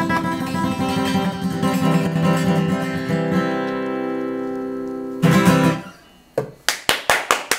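Acoustic guitar strumming chords, with a held chord ringing out and a final short strum about five seconds in. Quick hand clapping starts shortly before the end.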